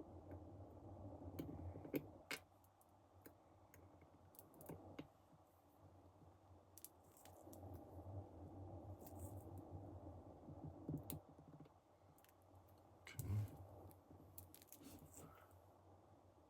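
Faint, scattered clicks and ticks of tweezers and tiny metal watch-stem parts being handled and fitted together, over a low hum. The loudest clicks come about two seconds in and about thirteen seconds in.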